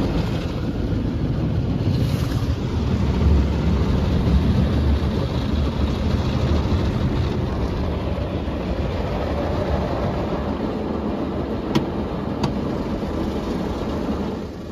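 Istobal M'Start rollover car wash's rotating carlite brushes scrubbing along the wet car, heard from inside the cabin: a steady low rumble and swish. There are two short ticks about twelve seconds in, and the sound drops quieter near the end.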